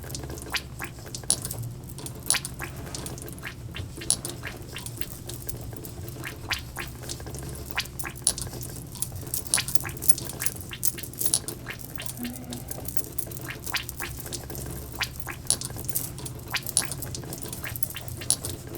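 Fingers working oily hair and scalp close to the microphone: wet, sticky crackling with irregular sharp clicks.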